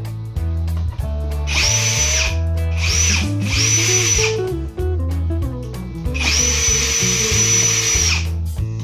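Power drill driving screws into the cabinet panels, in three short runs and then one longer run of about two seconds. Background music with a steady beat plays throughout.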